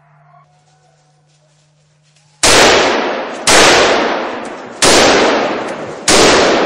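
Four gunshots from a hunting gun fired at a running wild boar, in quick succession a little over a second apart, each echoing and fading away through the forest.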